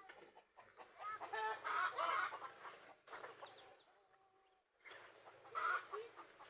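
Domestic chickens clucking in several short bouts, with one held note about two thirds of the way through.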